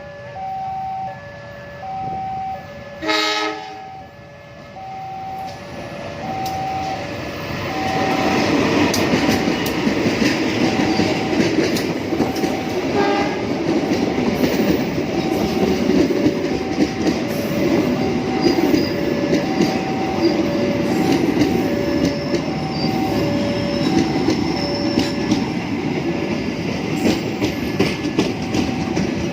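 A level-crossing warning alarm alternates between two tones throughout. About three seconds in comes one short train horn blast. From about eight seconds a train passes, its wheels clattering over the rail joints.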